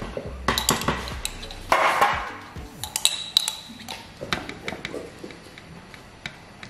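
Metal spoon clinking against a glass jar of minced garlic and tapping in an aluminium foil pan as the garlic is spooned out and spread on raw lamb chops: a string of sharp clicks and clinks, a couple of them ringing briefly.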